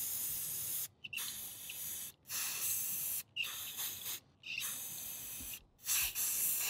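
Aerosol spray paint can hissing in a series of bursts of about a second each, with short pauses between them (about six in all), as paint is sprayed onto the surface of the water for hydro dipping.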